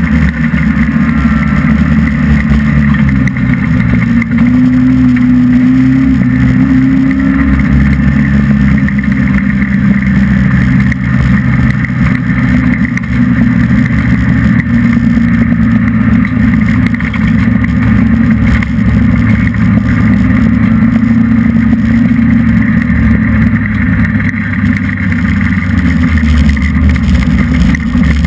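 Hobby stock race car's engine running hard under racing load, heard loud from inside the cockpit, its revs rising and falling through the corners of a dirt oval. The revs drop slightly near the end.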